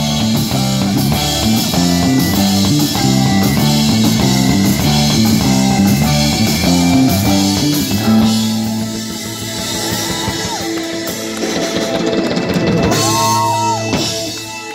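Live rock band playing through amplifiers: electric guitars, bass and drum kit driving a steady repeating riff. About halfway through the band moves into long held notes and winds the song down, ending just before the close.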